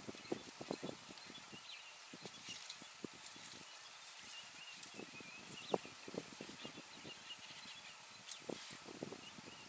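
Elephants feeding in the bush: irregular soft snaps, cracks and rustles of branches being broken and stripped, with the odd footfall.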